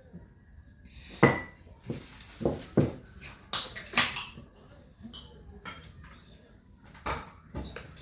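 Dishes knocking and clinking on a table: a run of sharp knocks, one ringing briefly about a second in, and two more near the end.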